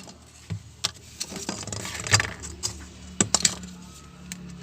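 Scattered sharp clicks and taps of hand tools and plastic parts as a Bluetooth speaker's casing is worked open.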